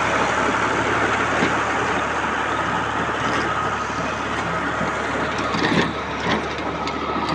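Tractor engine running steadily as it drives a rotary tiller working the soil.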